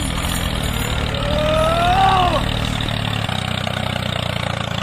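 Steady, engine-like running of a homemade mini tractor as it pulls a loaded trolley, a low pulsing drone. A brief tone rises and falls about two seconds in.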